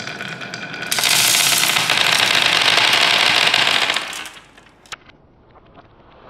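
Hundreds of small plastic smiley-face beads tipping out of a toy dump truck's bed and clattering as they scatter across a hard tabletop. The dense clatter starts suddenly about a second in, lasts about three seconds and dies away, with one more click soon after.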